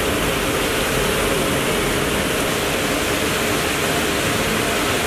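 Water cascading down a stepped fountain wall, a steady rushing splash.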